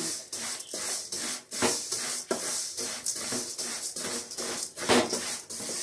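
Spatula stirring and scraping dry vermicelli being roasted in ghee in a metal pot, in a run of irregular rasping strokes.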